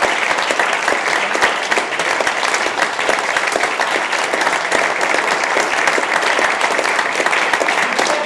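Audience applauding steadily, many hands clapping at once at a curtain call.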